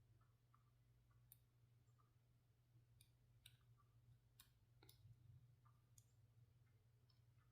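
Faint, irregular clicks of a lock pick working the pin stack inside a Master Lock 911 padlock, about half a dozen over several seconds, over a low steady hum.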